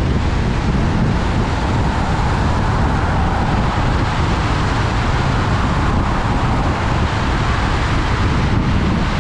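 Steady road noise from a car at highway speed on wet pavement: a low rumble of tyres and wind with a hiss of spray over it, swelling slightly for a few seconds in the middle.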